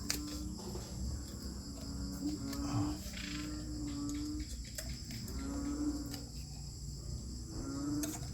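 Insects chirping steadily, with a low hum that sounds for about a second at a time and breaks off repeatedly. A few faint clicks come in between.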